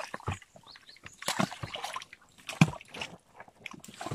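Irregular splashing and sloshing in a shallow muddy pool, with scattered thuds of a hoe digging into wet earth; the loudest splash comes about two and a half seconds in.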